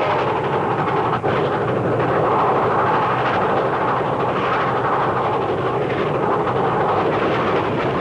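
Steady running noise of a moving train, with no whistle sounding; a brief dip in level about a second in.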